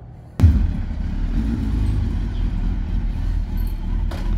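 A motor vehicle's engine running, a loud, steady low rumble that starts abruptly with a click about half a second in.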